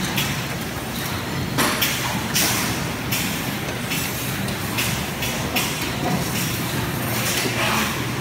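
Automatic wire-bending machines running: a steady machine hum broken by short hisses every second or so, at uneven spacing.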